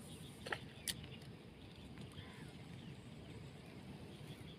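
Quiet outdoor background with a steady low hiss, two short sharp clicks about half a second apart early on, and a bird calling faintly once a little after two seconds.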